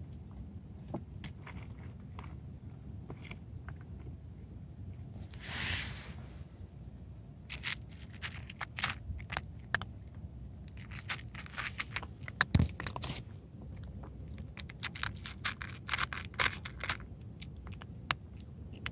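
A cat crunching dry kibble, in clusters of quick crunches through most of the second half. A brief louder noise comes about five seconds in, before the crunching starts.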